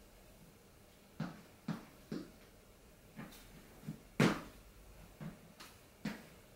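Trainers landing a counter-movement jump on a wooden floor platform: one heavy thud about four seconds in, with lighter foot taps and steps before and after it.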